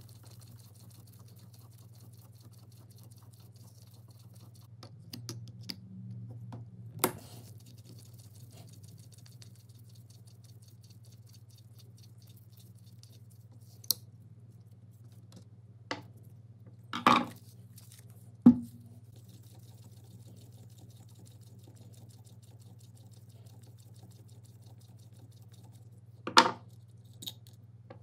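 A screwdriver backs small screws out of an antique electric drill's metal housing, making fine scratchy ticks. Several sharp knocks come as the metal parts are handled and set down, over a low steady hum.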